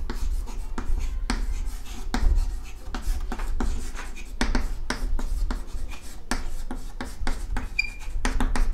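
Chalk writing on a chalkboard: a quick, irregular run of short scratching and tapping strokes as words are written out.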